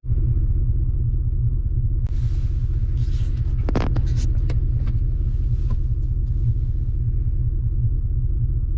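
Steady low rumble of a car driving, heard from inside the cabin, with a few brief rustles or knocks about a third of the way through.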